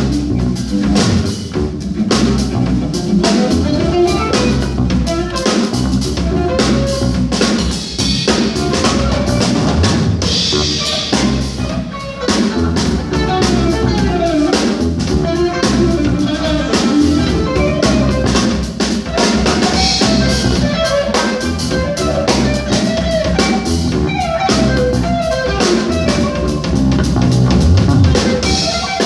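Jazz-funk trio of electric guitar, electric bass and drum kit playing live, with the drum kit to the fore.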